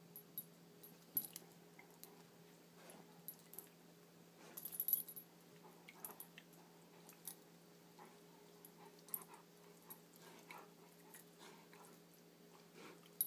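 Quiet scuffling of a Greater Swiss Mountain Dog and a cat play fighting on a couch: rustling and scattered sharp little clicks, thickest about four to five seconds in, over a steady low hum.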